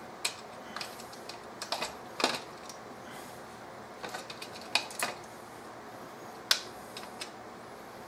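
Irregular sharp plastic clicks and snaps as a Chevy small-block's distributor cap and spark plug wire boots are handled and pushed into place, about a dozen in all. The engine is not running.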